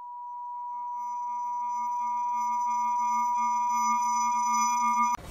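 Synthesized electronic intro tones: a cluster of steady pure tones, the strongest near 1 kHz with fainter higher ones and a low hum beneath, held unchanging while swelling in loudness. The tones cut off suddenly near the end, followed by a brief hiss.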